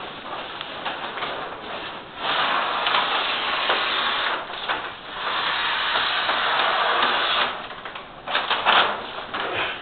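Backing liner being peeled off a large self-adhesive whiteboard sheet: two long stretches of loud, even rasping rustle, then short crackling rustles of the big sheet being handled near the end.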